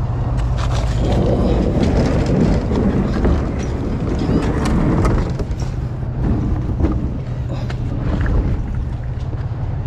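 Plastic hull of a round Roundabout Watercraft one-person boat scraping and grinding along a concrete boat ramp as it is pushed into the water, with irregular scrapes and knocks, heaviest in the first half. A steady low hum runs underneath.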